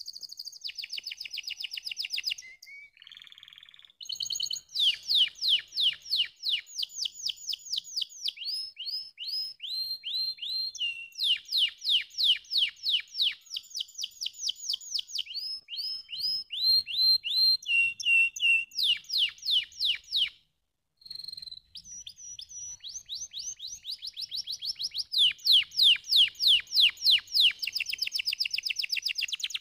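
Domestic canary singing: long rapid trills of repeated sweeping notes, one phrase running into the next, with a brief break of about half a second about twenty seconds in.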